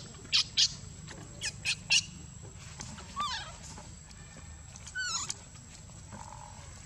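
Newborn baby macaque squeaking: a run of short, sharp, high squeaks in the first two seconds, then a wavering, falling cry about three seconds in and another wavering cry about five seconds in.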